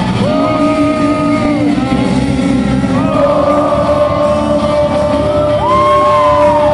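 Live singing into a microphone over loud backing music, played through a stage PA in a large hall. The voice holds long notes in the second half.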